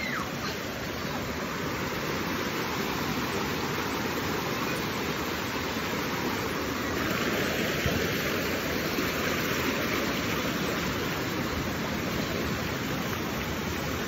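Shallow rocky stream rushing over boulders in small cascades: a steady rush of water, a little brighter for a few seconds around the middle.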